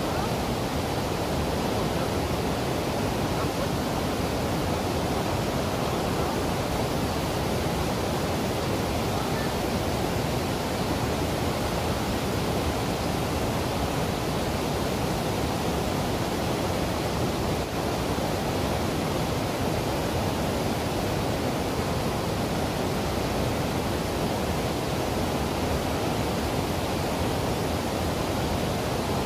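Waterfall rushing: an even, unbroken water noise at a constant level.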